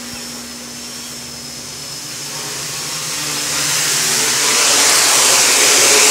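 Quadcopter's brushless KDA 20-28M motors and 10-inch Gaui propellers whirring as it comes in to land. The whir grows steadily louder from about two seconds in.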